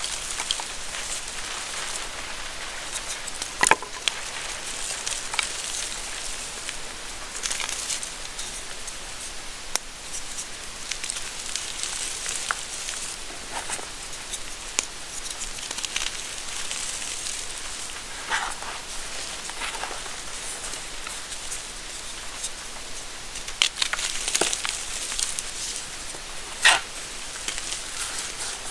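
Bare hands crushing and crumbling reformed gym chalk: a continuous dry, powdery crackle and rustle. It is dotted with small crunches and a few sharper snaps, the loudest a few seconds in and twice near the end.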